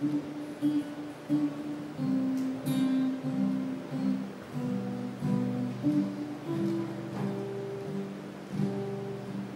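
Two guitars playing a slow blues: a plucked single-note melody over a strummed acoustic guitar accompaniment, the notes ringing on.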